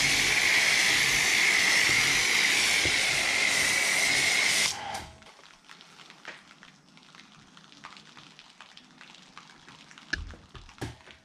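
Cheap electric pressure washer spraying through a generic foam cannon: a loud, steady hiss with a high whine, which cuts off suddenly about five seconds in. After that there is only faint crackling and a couple of small ticks.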